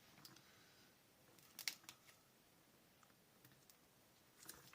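Near silence: room tone with a few faint clicks and rustles, the clearest a short click about one and a half seconds in.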